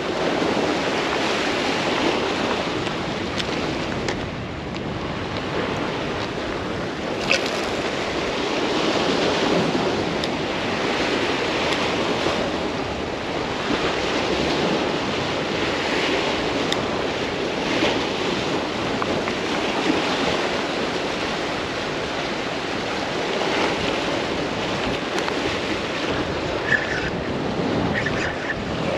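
Surf breaking and washing against the rocks of a jetty, a steady churning rush, with wind buffeting the microphone and a few brief clicks.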